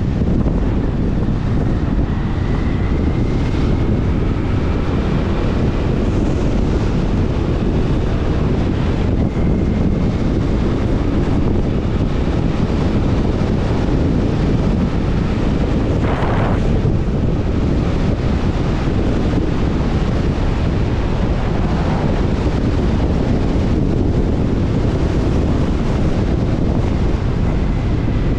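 Heavy wind rushing over an action camera's microphone on a moving Benelli Imperial 400 motorcycle, with the bike's single-cylinder engine running steadily underneath. A brief louder rush comes about halfway through.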